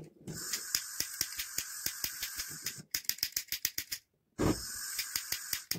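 Butane gas hissing from an opened cartridge blowtorch's nozzle while a lighter is clicked rapidly to light it; the hiss and clicking break off twice and start again.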